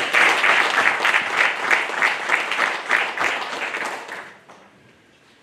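Audience applauding, starting suddenly and dying away about four seconds in.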